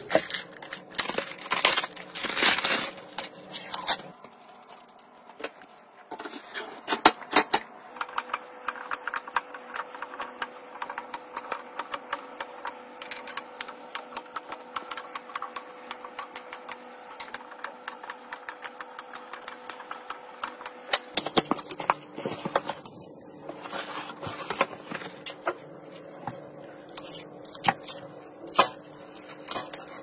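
Close-up handling sounds of PC parts: rapid clicks and snips of flush cutters trimming plastic cable ties, taps of hardware, and crinkling of plastic packaging, over a faint steady tone.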